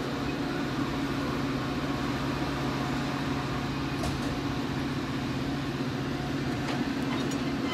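Metra bilevel commuter train standing at the platform, its onboard equipment giving a steady hum with a low tone and another about an octave above, and a few faint ticks.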